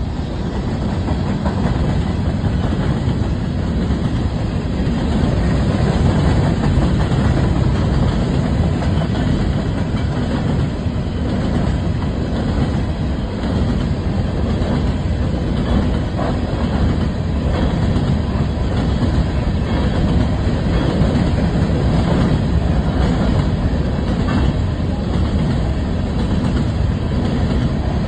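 Freight train of open-top hopper cars rolling steadily past, a continuous rumble with the wheels clicking over the rails.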